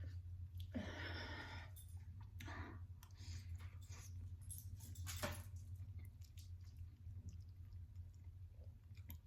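Close-up eating sounds of a person eating spicy ramen noodles: chewing and wet mouth sounds in scattered short bursts over a steady low hum.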